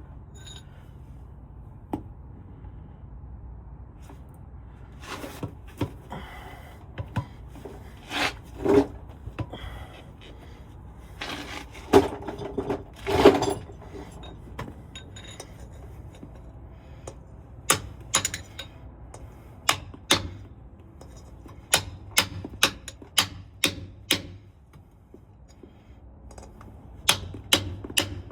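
Metal tools and driveshaft parts being handled: scattered clanks and knocks, a few louder ringing ones near the middle, then a string of sharp separate clicks in the second half. A low steady hum runs underneath.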